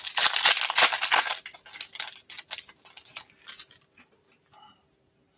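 Wrapper of a hockey trading card pack torn open by hand: a dense crackling rustle, then lighter crinkles and clicks as the cards are pulled out, dying away about four seconds in.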